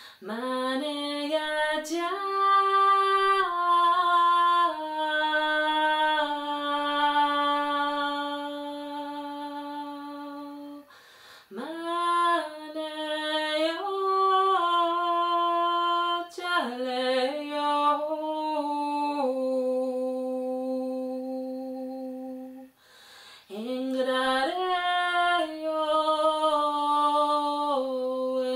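A woman's solo voice singing unaccompanied in four long held phrases. Each phrase slides up into a sustained note, with short breaths between.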